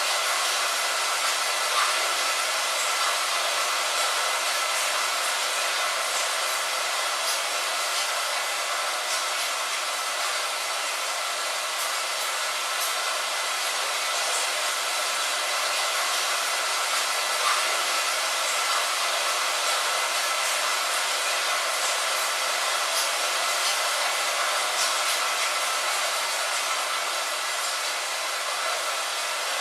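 Steady light rain: a dense, even hiss with faint scattered drop ticks.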